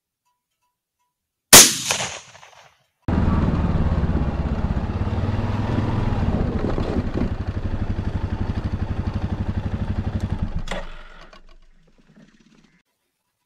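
A single .223 rifle shot about a second and a half in, ringing away briefly. Then a quad bike's engine idles steadily with an even pulse and stops near the end.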